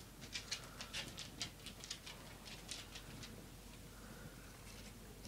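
A dog's claws clicking on a bare concrete floor as it walks about: a quick, irregular run of light clicks that dies away after about three seconds.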